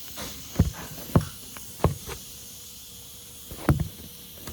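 Four dull thumps at uneven intervals, over a steady hiss.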